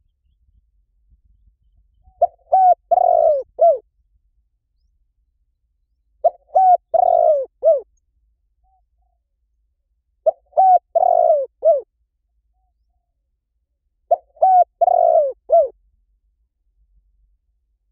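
Spotted dove cooing: four identical phrases about four seconds apart, each two short coos, a longer coo and a short final note.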